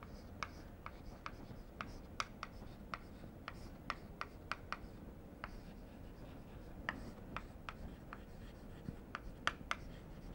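Chalk writing on a blackboard: an irregular run of faint, short taps and scratches as letters are chalked.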